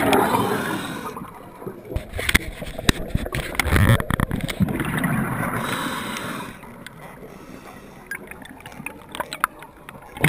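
A scuba diver breathing through a regulator, heard underwater: a gurgling rush of exhaled bubbles near the start, again about halfway through, and once more right at the end, with quieter spells between. A string of sharp clicks and knocks comes in the first half.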